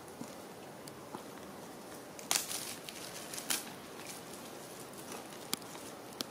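A few short rustles and clicks over a faint steady background, the loudest about two seconds in: young macaques shifting about and handling fruit and leaves as they eat.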